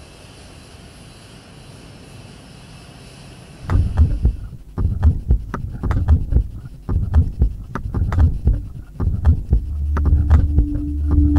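Electronic soundtrack music: a steady drone, then from about four seconds in a beat of low thumps and clicks, with a held low bass note joining near the end.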